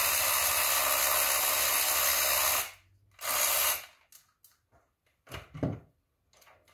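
Handheld power tool running steadily for about three seconds, then a second short burst, backing out a 10 mm bolt. A few light clicks and a short clunk follow near the end.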